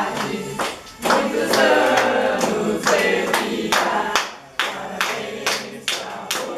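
A small group singing a birthday song together, with hand claps in time at about two a second.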